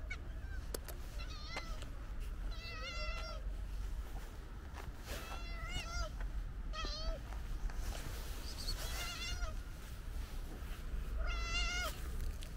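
Calico cat meowing repeatedly, about six separate meows spaced one to three seconds apart, some rising and falling in pitch.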